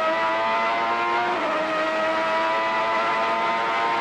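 1991 Ferrari Formula 1 car's V12 engine at high revs, heard onboard. Its pitch holds nearly level, with one brief break about a second and a half in, like a gear change.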